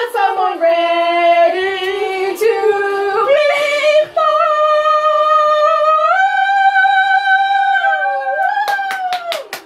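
Loud singing voice holding long notes, stepping up in pitch twice and gliding down near the end, with a few sharp clicks just before it stops.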